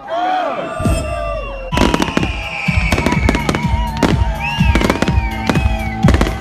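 Fireworks going off: after a crowd's shouting fades in the first second, a rapid string of bangs and crackles starts a little under two seconds in and carries on, with whistling tones and background music underneath.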